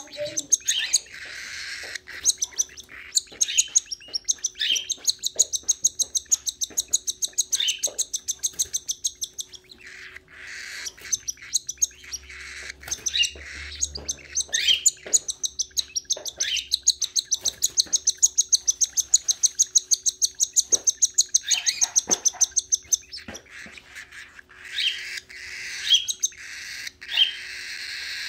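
Young lutino cockatiel giving rapid, repeated begging chirps while being hand-fed through a syringe tube, with a couple of brief pauses.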